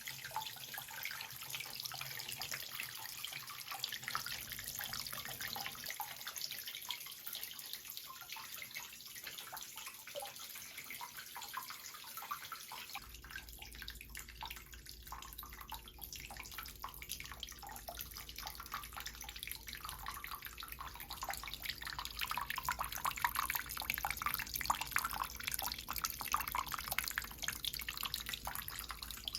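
Water trickling and splashing continuously in a homemade indoor water feature, with many small drips and splashes that grow busier near the end. A steady low hum starts about halfway through.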